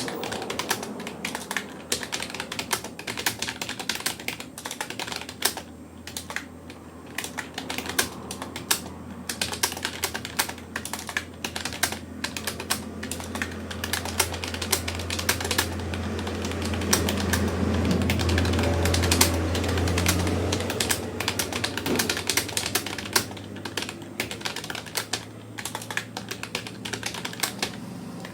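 Fast continuous touch-typing on a Rapoo computer keyboard: a rapid, uneven stream of key clicks. Under it, a low background hum swells for several seconds past the middle, then fades.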